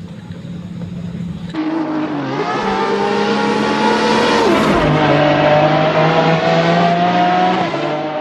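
Racing car engine sound coming in about a second and a half in: engines revving and running at high speed, with rising and falling pitch, one dropping away midway as if a car passes. It fades near the end.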